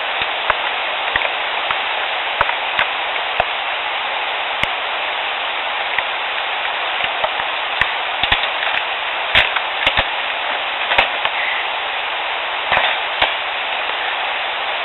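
Scattered sharp clicks and pops, irregularly spaced, a dozen or more, over the steady hiss of a field recorder left in the woods. The recordist takes them for the "snaps and pops" mouth sounds she attributes to a Sasquatch.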